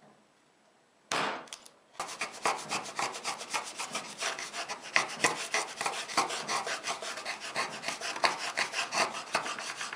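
A hand-tool blade paring and scraping the bottom of a groove in a softwood board with quick, rhythmic strokes, several a second. One louder scrape comes about a second in, and the steady run of strokes starts a second later.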